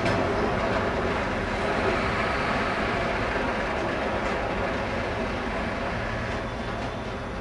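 Freight train of covered steel-coil wagons rolling away along the track, a steady rumble of wheels on rail that slowly fades as the train leaves.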